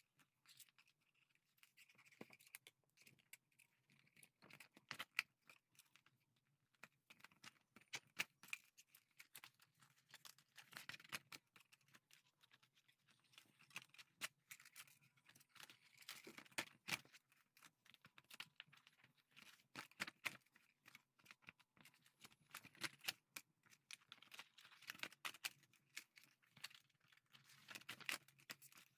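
Spiral notebook being pulled apart by hand: faint, irregular small clicks and short paper rips as the pages are torn free of the spiral binding.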